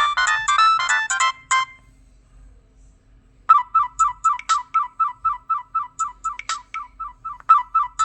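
Preloaded ringtones of a Nokia 6010 mobile phone playing through its speaker: one melody ends about a second and a half in, and after a short pause a different ringtone starts, a fast even run of short repeated beeps, about four a second.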